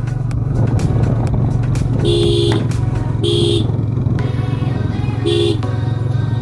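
Motorcycle engine running steadily while riding, with a horn sounded in short two-tone beeps, three times, each about half a second long, starting about two seconds in.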